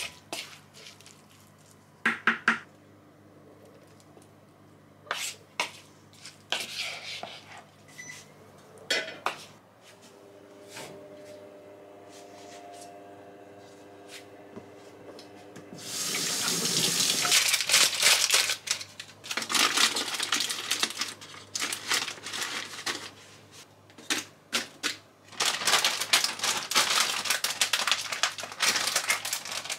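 Kitchen work: scattered clinks and knocks of bowls and utensils, then water running in long stretches through the second half.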